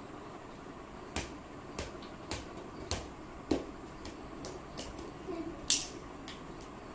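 A small plastic ball bouncing and being slapped by a child's hands: a string of sharp, light taps about every half second, the loudest one late on.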